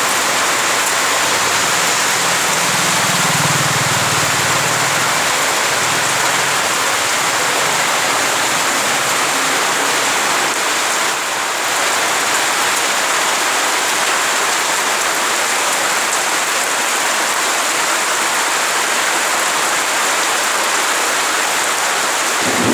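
Heavy rain pouring steadily, an even hiss of water. A low rumble swells and fades a few seconds in.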